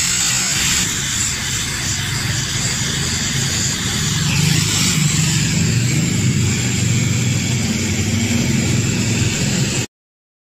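Steady rushing roar with a low rumble underneath, cutting off suddenly near the end.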